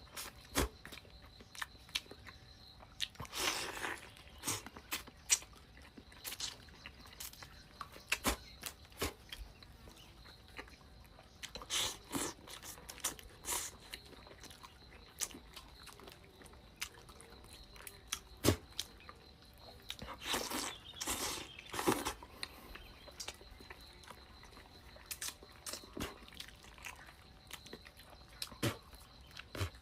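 A person eating close to the microphone: chewing and biting, with scattered short clicks and a few longer bursts of mouth noise.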